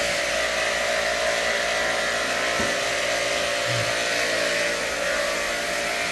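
Power sprayer running steadily: an even motor hum with a constant hiss of water spray.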